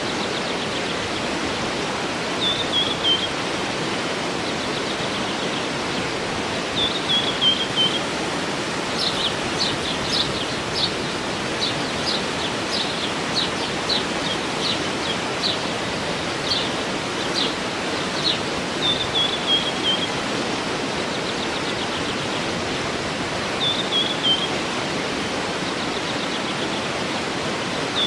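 Waterfall rushing steadily, with birds singing over it: a short falling phrase repeated every few seconds, and a run of quick, sharp chirps through the middle.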